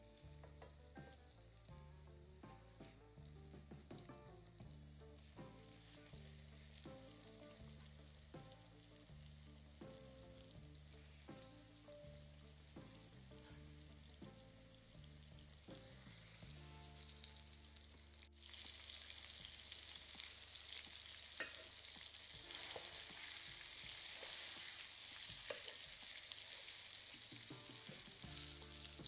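Flour-dredged chicken breast fillets frying in hot oil in a nonstick pan, sizzling steadily with now and then a light click of a fork. The sizzle gets suddenly louder about two-thirds of the way in. Soft background music plays underneath in the first part.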